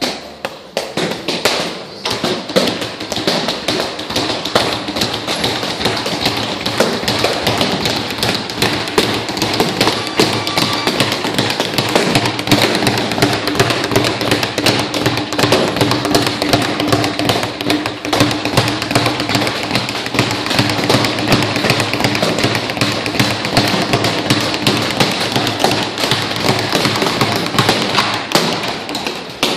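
Gloved fists hitting punching bags in fast, continuous tapping: the quick rattle of a speed bag against its wooden rebound board and duller punches on a hanging bag, with music playing underneath.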